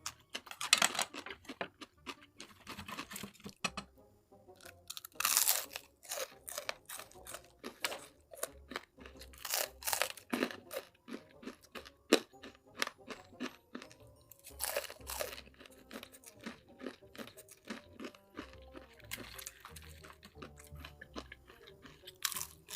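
A person eating close to the microphone: crunchy chewing with many sharp mouth clicks, and a longer noisy burst every few seconds.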